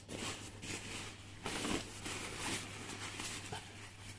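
The nylon shell of a Naturehike CW280 goose-down sleeping bag rustling and crinkling in irregular swishes as it is handled and bunched up.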